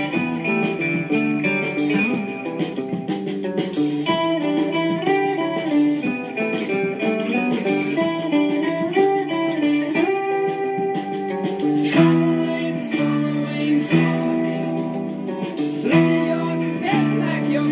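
Acoustic guitar played solo, picking a melody note by note; from about twelve seconds in it moves to fuller chords with a low bass note struck roughly every two seconds.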